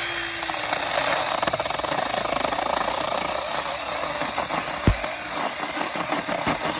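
Battery-powered mini chainsaw cutting through wood, its chain rasping steadily. There is a single sharp knock about five seconds in.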